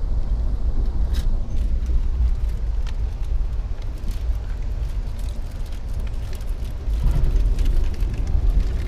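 Steady low rumble of a passenger train coach running on the rails, heard from inside the cabin, with a few faint clicks. It gets louder about seven seconds in.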